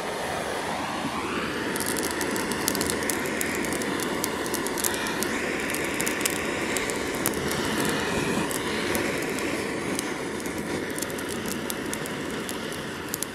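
Handheld butane blowtorch running with a steady rush of flame as it lights firewood in a folding sheet-metal stove. From about two seconds in, the wood crackles and pops as it catches.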